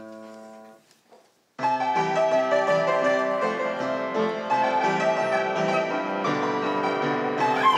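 Upright piano played in a lively, bright tune with full chords, coming in about a second and a half in after one brief held tone at the start.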